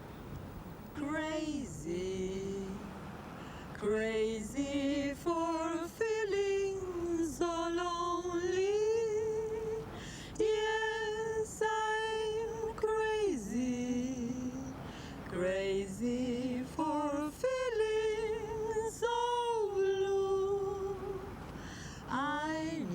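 A woman singing unaccompanied, starting about a second in: short phrases of long held notes that slide up and down in pitch and waver with vibrato, separated by brief breaks.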